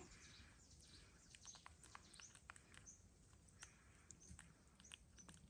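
Near silence with faint, scattered small clicks and smacks of a baby macaque chewing banana, with faint high bird chirps.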